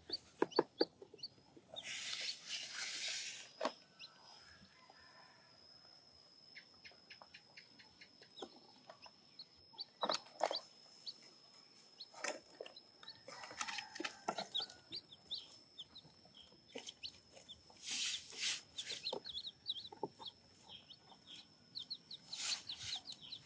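Chickens clucking, mixed with scattered clicks and clatters of plastic toy dishes being handled, over a steady high-pitched whine in the background.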